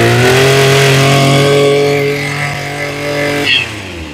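Maruyama BIG M KC20NX brush cutter engine revved up and held at high speed with a line trimmer head fitted, which puts load on the engine. About three and a half seconds in the throttle is let off and the engine note drops.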